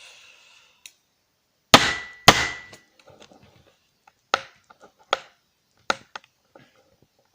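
Two sharp whacks about half a second apart on a laptop hard drive's impact-fitted steel screws, struck against a block of wood, with a short metallic ring; then several light metallic clicks. The wood is too soft a surface for the blows to free the screws.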